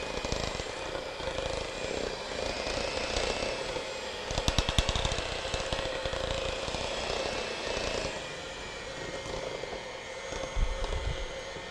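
Electric hand mixer running steadily as it beats cake batter in a bowl, with a brief rapid clatter about four and a half seconds in and a low thump near the end.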